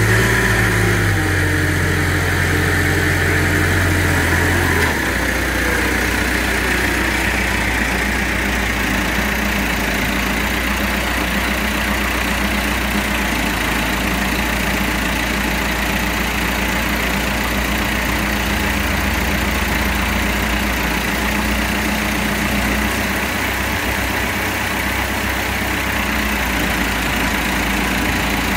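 Diesel telehandler engine running close by, a little higher for the first five seconds, then settling to a steady idle.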